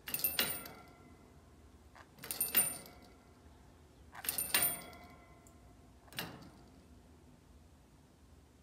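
A small bell on a parakeet's cage toy jingling in four shakes about two seconds apart, each ringing on briefly; the last one is weaker.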